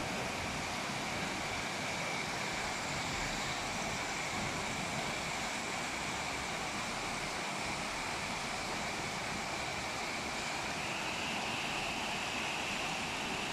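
Heavy rain falling steadily, an even, unbroken hiss of rainfall.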